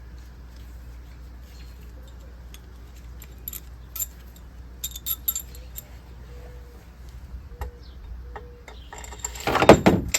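Metal clinks of cylinder head bolts, washers and hand tools being handled. Near the end comes a short, loud, rapid rattling as a head bolt is run down into the engine block.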